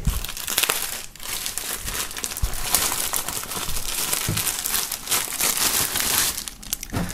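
Thin plastic shrink-wrap film crinkling as it is torn open and pulled off by hand, with a brief pause about a second in.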